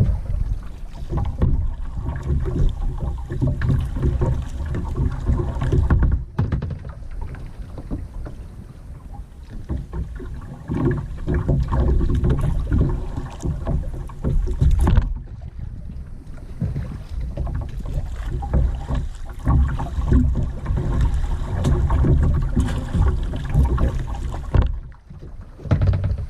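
Kayak being paddled: water swishing and splashing with the paddle strokes over a low rumble of wind on the microphone, which drops out briefly a few times.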